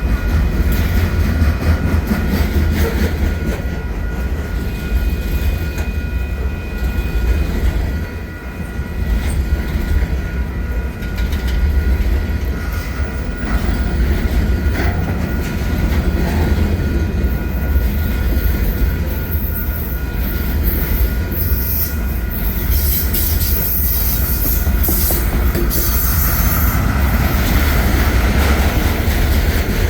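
Freight train carrying wind-turbine tower sections rolling past, with a steady deep rumble, wheels clacking over rail joints and a thin, high-pitched wheel squeal. The squeal and hiss grow louder over the last several seconds.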